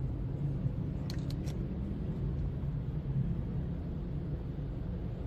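Steady low rumble of a car heard from inside the cabin while sitting in slow traffic, with a few faint light clicks about a second in.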